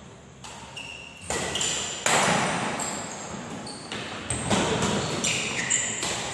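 Badminton rally: rackets striking the shuttlecock in a string of sharp cracks, the loudest about two seconds in, mixed with short high squeaks of shoes on the court floor, echoing in a large hall.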